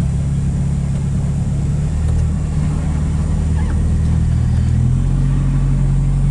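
A vehicle's engine and tyre noise, heard from inside the cabin while it drives along a winding paved road. The engine note is a steady low drone that shifts and grows a little stronger about five seconds in.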